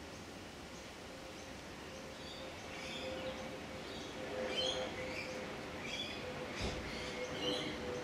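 Small birds chirping, repeated short high calls several times a second starting about two seconds in, over a low rush of wind noise.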